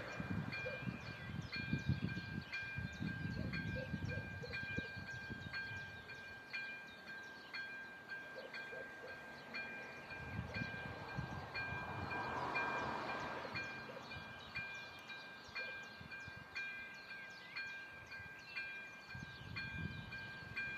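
Electronic level-crossing warning bell ringing in even, repeated strokes while the barriers are down and the red lights flash. A low rumble underlies the first few seconds and swells again around the middle.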